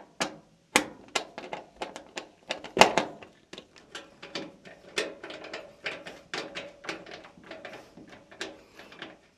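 Nut driver tightening a screw into the sheet-metal control-board mounting of a Whirlpool Duet gas dryer: a run of irregular sharp metallic clicks and taps, the loudest about three seconds in.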